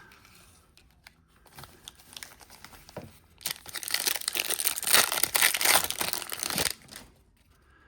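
Foil trading-card pack wrapper being torn open and crinkled: light scattered crackles at first, then a loud stretch of dense crinkling in the middle that stops a second before the end.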